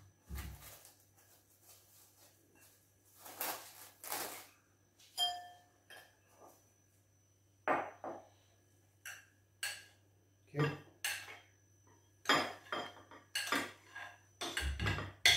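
A spoon clinking and scraping against glass mixing bowls as crushed digestive biscuit crumbs are scooped from one bowl into another, in irregular clinks and short scrapes.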